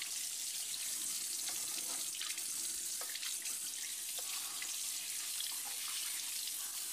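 Kitchen tap running steadily into a sink, with small irregular splashes as a skinned rabbit carcass is rinsed under the stream.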